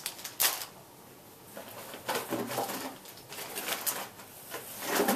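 Handling noise from plastic tackle packages and a cardboard box being rummaged through: scattered rustles, light knocks and clicks, with a sharp click about half a second in.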